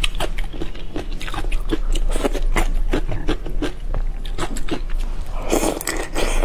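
Close-miked eating sounds: wet chewing and lip smacks while biting and eating a peeled prawn coated in chili sauce, in many short sharp clicks. About five and a half seconds in comes a denser run of wet mouth noise.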